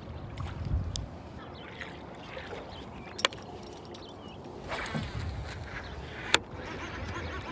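Kayak on the water: low swishing swells from the hull and water, with two sharp knocks against the kayak, about three seconds in and again about six seconds in.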